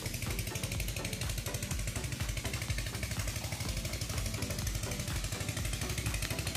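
Irrigation pump engine running steadily with a rapid, even chugging beat.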